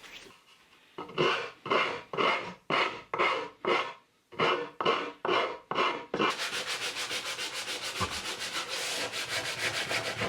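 Oak being abraded by hand: about a dozen slow, separate scraping strokes, roughly two a second, then from about six seconds in a run of quick, short back-and-forth strokes.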